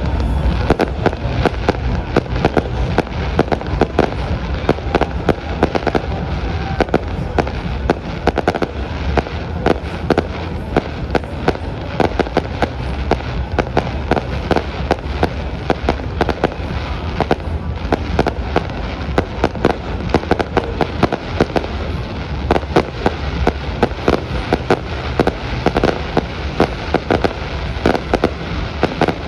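Fireworks going off in a dense, continuous run of sharp pops and bangs, many a second, over a low rumble.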